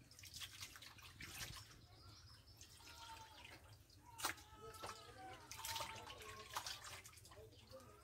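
Quiet water dripping and light splashing as pieces of raw bird meat are rinsed by hand, lifted from a bowl of water and dropped into a metal bowl. Faint short pitched animal calls are heard in the background a few times.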